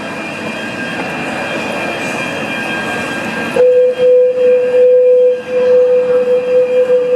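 Railway station background noise with trains. About halfway through, a loud, steady single-note alarm tone starts abruptly and holds, wavering in level: the station evacuation alarm being tested.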